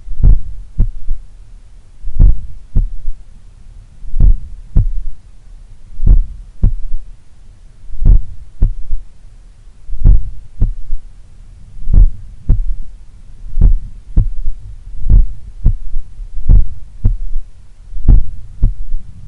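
A slow, strong human heartbeat heard through a stethoscope at the apex of the heart. Each beat is a pair of low thuds with a fainter third sound just after the second one. That third heart sound (S3) is put down to blood recoil in a slightly larger, supple left ventricle, as in an athlete's heart. The beats come about every two seconds at first and quicken to about every second and a half in the second half.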